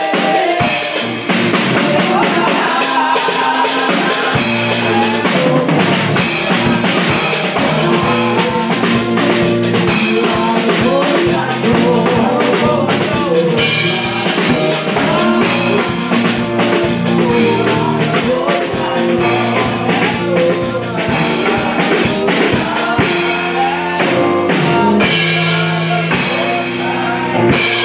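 Church worship song: women singing into microphones over a steady drum beat and bass.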